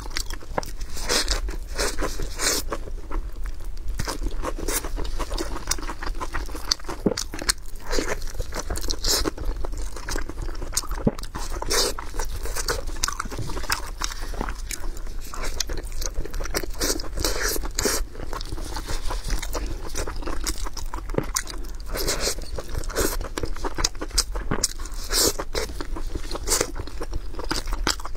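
Close-miked eating: crisp lettuce-leaf wraps crunching and being chewed, mixed with wet tearing and squishing as pork head meat is pulled apart by gloved hands. Dense, irregular crackles run throughout.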